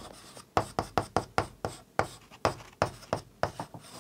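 Chalk writing on a chalkboard: a quick run of sharp taps and short scrapes, several a second, as symbols are written.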